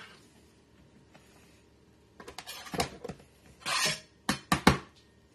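Quiet at first, then a kitchen knife and a plastic cutting board knocking and scraping against a ceramic slow-cooker crock as chopped raw chicken is scraped off the board into it. The run ends in a few sharp knocks.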